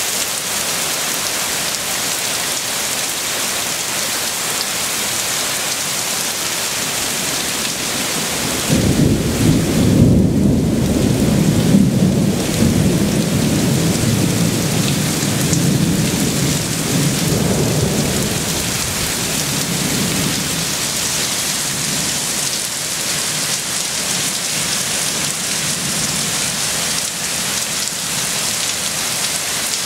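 Steady heavy rain, with a rumble of thunder that breaks in suddenly about nine seconds in, is loudest for a few seconds, then rolls away over about ten seconds.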